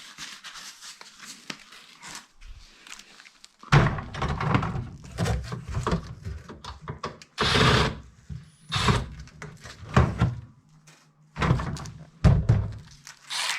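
Faint clicking for a few seconds, then a run of heavy thunks and scraping knocks, about eight in ten seconds, as a built-in dishwasher is handled and worked loose for removal.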